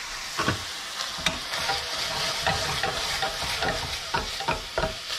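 Wooden spatula stirring and scraping diced carrots, onions and browned ground sausage around a stainless steel pan, in short irregular strokes over a steady sizzle. The vegetables have just gone into the hot fat and are starting to sweat.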